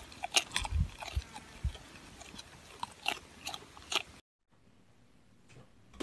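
Alpaca chewing: a string of irregular short crunches and clicks with a few low bumps. It stops about four seconds in, leaving only faint sound.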